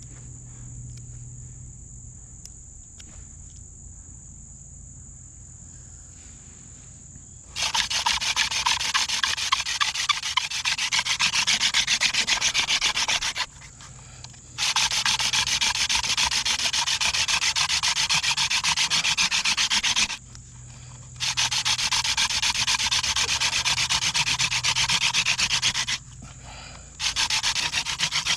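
Hand-drill friction fire: a wooden spindle twirled fast between the palms grinds in its charred socket in a wooden hearth board, a loud dry rasping rub. It starts about a quarter of the way in and comes in four long bouts broken by short pauses, the drilling that heats the wood dust toward an ember.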